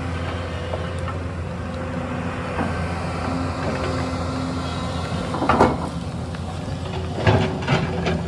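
Excavator's diesel engine running steadily, with a sharp metallic clank about five and a half seconds in and several more clanks near the end.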